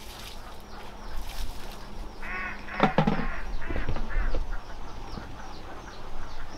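Farmyard fowl calling: a quick run of quacking calls about two and a half seconds in, with fainter short calls through the rest.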